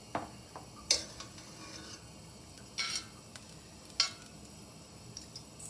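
A metal spoon clicks and scrapes against a stainless steel frying pan as a lump of pork lard is pushed into the preheated pan, with a faint sizzle. There are three sharp clicks, about one, three and four seconds in.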